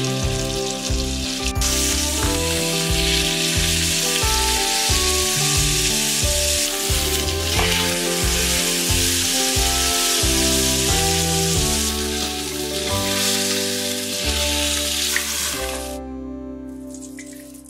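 A block of beef sizzling as it sears in hot oil in a frying pan, a steady hiss that stops near the end as the meat is lifted out. Background music plays underneath.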